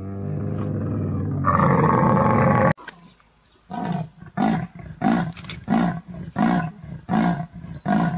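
A camel's long, low groaning call that grows louder about halfway through and stops abruptly near the three-second mark. Then a clouded leopard calls in a run of about seven short roar-like moans, nearly one and a half a second.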